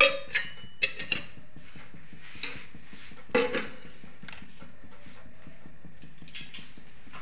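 Steel kitchen utensils and vessels knocking and clinking against the stovetop and pan: a few sharp knocks in the first second and two more about three and a half seconds in, over a steady hiss.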